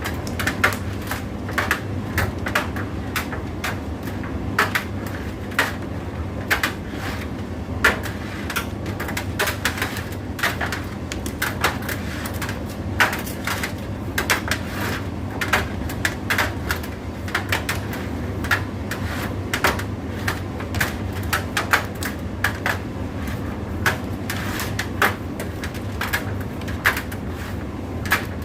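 Indesit IDC8T3 condenser tumble dryer running: a steady motor hum with frequent irregular clicks and knocks from the load tumbling in the drum.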